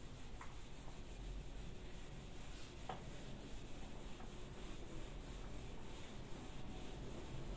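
Faint rubbing of a handheld eraser wiping marker writing off a whiteboard.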